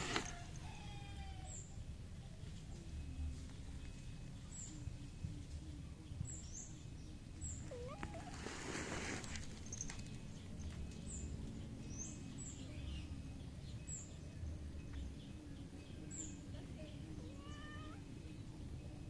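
A cat meowing a few times, with short calls near the start, about eight seconds in and near the end, over a steady low rumble. Short high chirps recur every second or two, and a brief rush of noise comes about nine seconds in.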